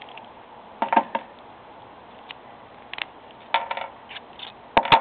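Small metal parts of a Medeco cam lock clicking and clinking as the lock is handled and taken apart. Scattered sharp clicks come in clusters about a second in and around three and a half seconds, with the loudest pair near the end.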